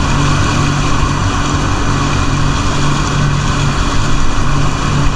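Jet ski engine running at a steady speed while under way, its hum holding even, with a steady rushing noise over it.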